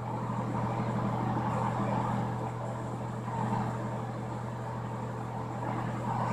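A steady low hum of background machinery, with no distinct event in it.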